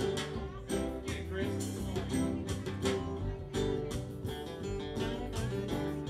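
Live band playing: electric and acoustic guitars over bass, with a steady beat.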